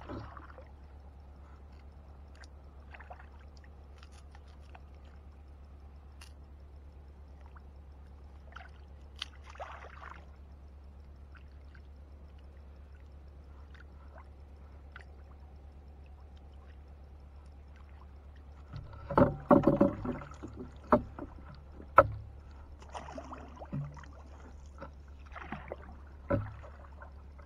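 Quiet water and handling sounds from a small wooden boat while a fishing net is set. About two-thirds of the way through comes a run of loud knocks and splashes as a wooden pole is worked in the water and against the boat, followed by a few single sharp knocks.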